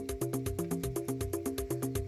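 Electronic background music with a fast steady beat and a repeating pitched melody.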